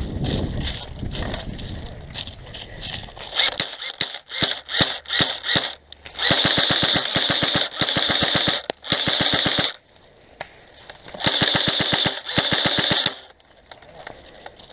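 Airsoft gun firing: a few scattered shots, then two long full-auto bursts of about three and two seconds, each a rapid even rattle of shots.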